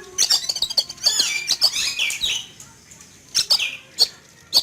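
Oriental magpie-robin (kacer) calling in short bursts of quick whistled chirps and harsh notes that swoop up and down, with sharp clicks between the phrases.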